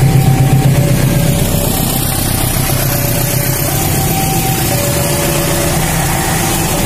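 Railway level-crossing alarm sounding its two-tone warning, alternating high and low about once a second, over a passing diesel-hauled passenger train. The locomotive's engine rumble is heaviest in the first second, then gives way to the steadier rolling of the coaches.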